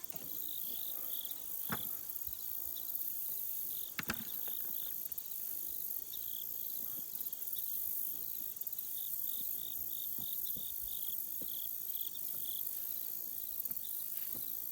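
Insects chirping in a steady repeating rhythm, a few chirps a second, over a high shrill insect hiss. A couple of sharp knocks sound about two and four seconds in.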